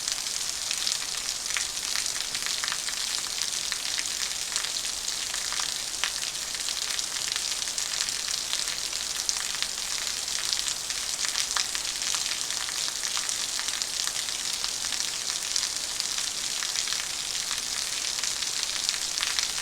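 Heavy rain falling steadily: an even, high hiss with many small drop ticks scattered through it.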